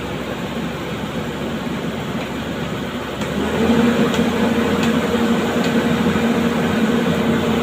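Excavator's diesel engine running steadily. About three seconds in it speeds up to a higher, held pitch and grows louder, as when the engine is throttled up to work the hydraulics.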